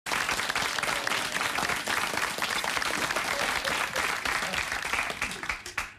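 Audience applauding, many hands clapping at a steady level that dies away near the end.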